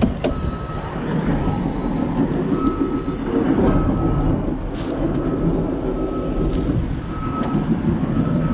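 A small excavator's diesel engine running steadily, with its warning beeper sounding a regular series of short beeps as the machine moves. A few sharp knocks and clunks from the cab come in over it.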